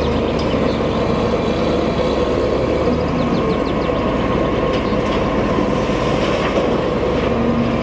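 Heavy diesel engines of a Caterpillar 990 wheel loader and a 777 haul truck running steadily, with a dense, even machine noise.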